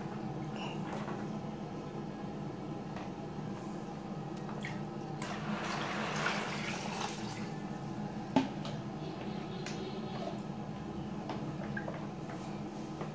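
Water splashing and trickling in a plastic basin as a toddler scoops and pours with a plastic dipper, loudest between about five and seven seconds in, with one sharp knock of the dipper against the basin a little after eight seconds, over a steady low hum.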